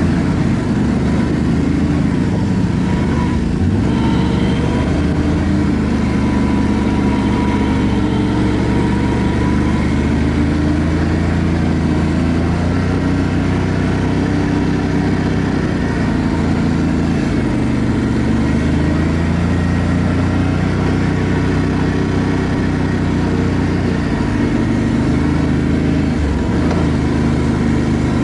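ATV engine running steadily under way, its pitch drifting gently up and down with the throttle.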